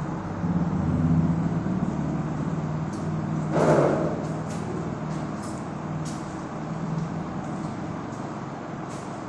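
Marker pen writing on a whiteboard in short, faint scratchy strokes, over a steady low engine-like hum. A louder rushing swell comes about three and a half seconds in.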